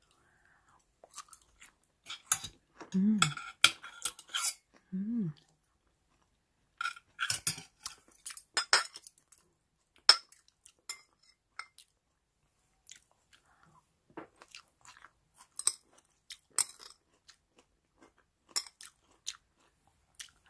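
Close-up chewing of crisp radish microgreens: irregular bursts of crunching and crackling as they are bitten and chewed, with pauses between mouthfuls.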